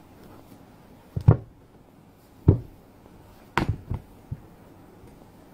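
Handling noise from a bolt of cotton fabric being unrolled and flipped open on a table: three dull thumps about a second apart, the first the loudest, followed by a couple of smaller knocks.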